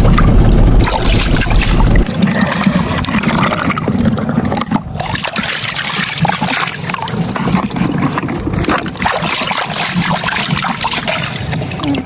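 Water splashing and trickling in an uneven stream over a vehicle being washed. A low rumble runs under it and cuts off suddenly about two seconds in.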